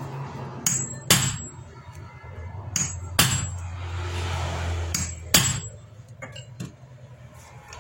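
Hammer striking a metal tool set against the head of a seized screw, six sharp blows in three quick pairs with a short metallic ring, to shift the stuck screw.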